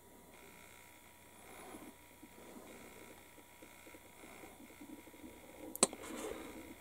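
Faint handling noise of a plastic scale model being held and turned, with one sharp click near the end.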